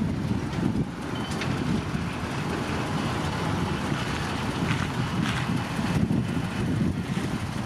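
Heavy diesel earthmoving machinery running steadily, a continuous low rumble with a few faint knocks.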